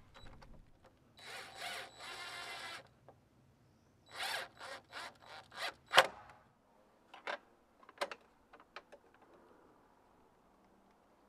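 Cordless drill-driver driving screws to fasten a PVC pipe fitting's bracket to a wooden post: one steady run of about a second and a half, a shorter run a few seconds later, then several sharp clicks and knocks.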